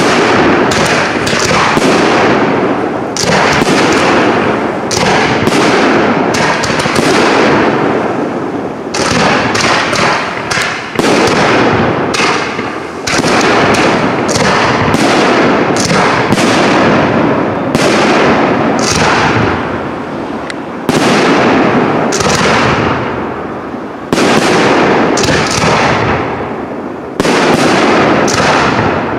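Aerial firework shells bursting in rapid succession during a professional display: a dense run of sharp bangs, several a second, each trailing off, with fresh loud volleys breaking in again and again.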